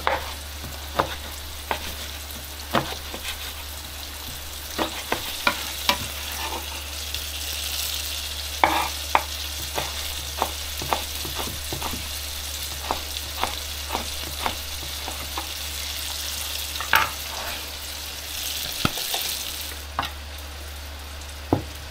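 Smoked bacon sizzling in oil in a stainless steel frying pan, a steady hiss, crossed by irregular short taps of a kitchen knife cutting through bacon onto a wooden chopping board.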